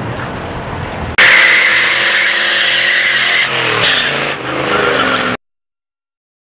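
A car doing a burnout: from about a second in, loud tyre squeal over the engine revving hard, with the engine's pitch rising near the end, then the sound cuts off suddenly.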